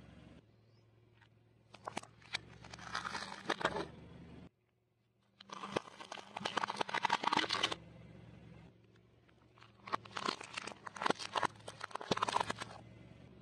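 Car tyre slowly rolling over and crushing brittle things: three separate bursts of crunching and crackling, from crispy fried snacks and from plastic snack packaging and cups. A low steady hum sits under the quieter gaps between the bursts.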